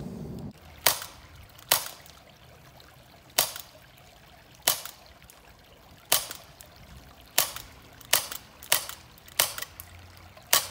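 Elite Force Glock 19X CO2 airsoft pistol firing about ten sharp cracks at an uneven pace, coming closer together toward the end.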